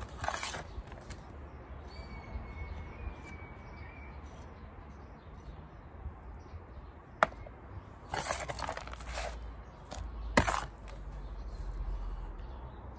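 Hand trowel scooping compost and scraping against plastic seed module trays as sown seeds are covered over. Two sharp knocks a few seconds apart in the second half, with short gritty scrapes and rustles around them.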